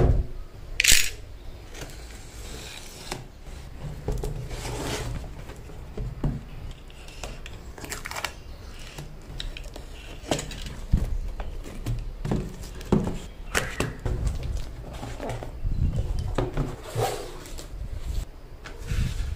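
Cardboard box handled on a wooden table: packing tape sliced with a box cutter, with irregular scrapes, taps and rustles of cardboard and tape as the box is cut and opened.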